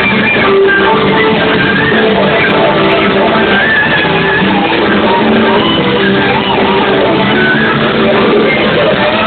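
Live band playing a loud pop-rock song with electric guitar to the fore, recorded from the crowd on a camera microphone that sounds dull and muffled.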